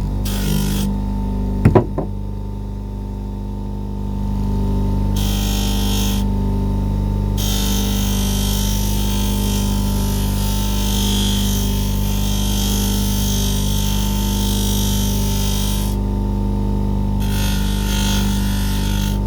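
Bench buffer motor running with a steady hum, and a hissing rasp in several stretches as the blade is worked against the finishing mop. Two sharp knocks about two seconds in.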